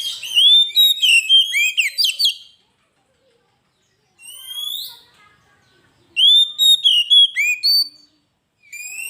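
Oriental magpie-robin (kacer) singing in a loud, varied song of quick whistled notes that sweep up and down. It comes in bursts: a long phrase at the start, a short one about four seconds in, another from about six to eight seconds, and a new phrase beginning near the end.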